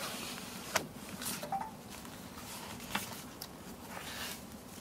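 Cardboard pages of a fold-out children's picture book being turned and handled: soft rustling, with two sharp clicks, one just under a second in and one about three seconds in.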